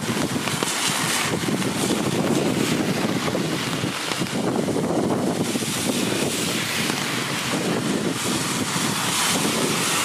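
Wind buffeting the microphone over the hiss of cars and a truck passing on the wet road, a steady rushing noise that swells and eases.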